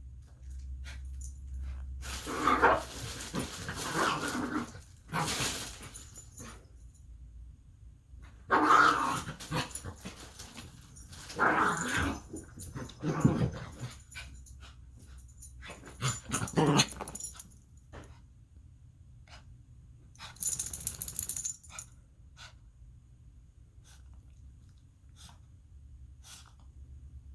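Dog growling and barking in several bursts, separated by quieter pauses, with only faint clicks in the last few seconds.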